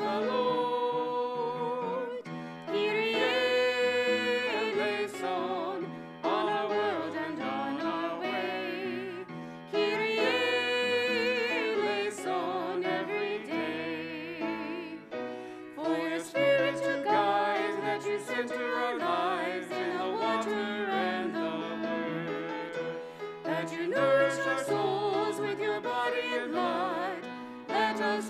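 Sung church liturgy: voices singing with vibrato over sustained instrumental accompaniment.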